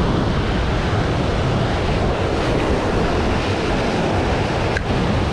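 Ocean surf breaking and washing over a rocky reef shoreline, a steady rushing wash, with wind rumbling on the microphone.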